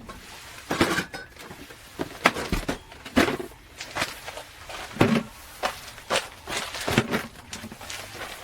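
Footsteps in snow, slow steps about one a second.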